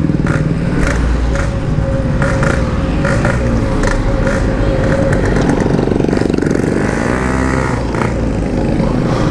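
Yamaha RX-King's two-stroke single-cylinder engine running steadily under way, heard through a stock-style Packing Power muffler. The pitch shifts briefly about seven seconds in.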